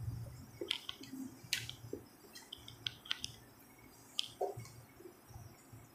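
Faint, irregular short clicks and ticks, about a dozen, over a low hum.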